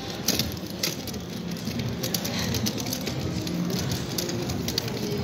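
Footsteps on a paved outdoor walkway: irregular sharp taps over a steady background hubbub.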